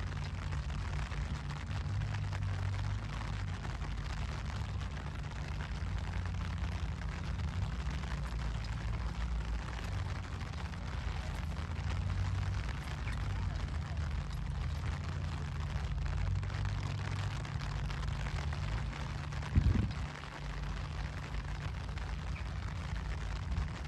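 Steady low hum of an engine idling, with a rumbling, buffeting low end. A single heavy thump comes near the end.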